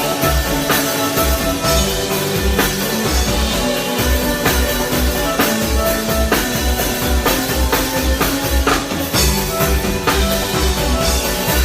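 Live band playing without vocals: drum kit and a steady bass beat at about two pulses a second under held notes from other instruments.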